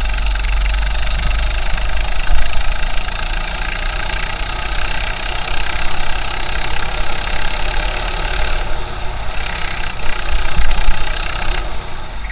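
A 200cc four-stroke go-kart engine running at speed, heard from on board with a heavy low rumble, muffled through an action camera's waterproof housing. The engine sound dips briefly twice in the second half.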